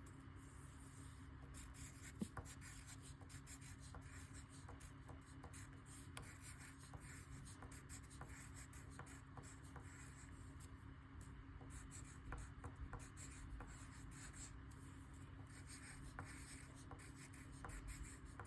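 Faint scratching of writing on paper with scattered small, irregular ticks, over a steady low room hum.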